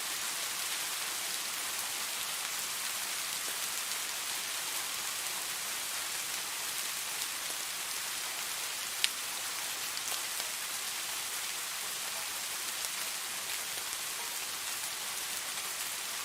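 Steady rain falling, an even hiss with scattered individual drops ticking on a surface, and one sharper, louder drop about nine seconds in.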